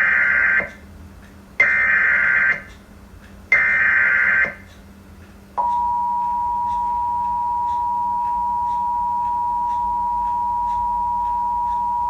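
Emergency Alert System broadcast: three roughly one-second bursts of buzzing SAME data tones, about two seconds apart, then about five seconds in the steady two-tone EAS attention signal starts and holds. It heads a child-abduction (AMBER) alert.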